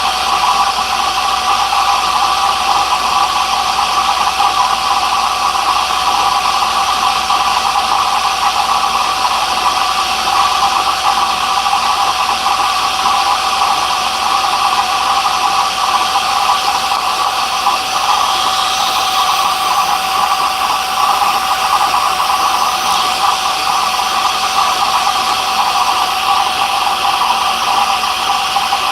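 A woodworking machine's electric motor running steadily without a break, with a strong even whine around the middle of the range.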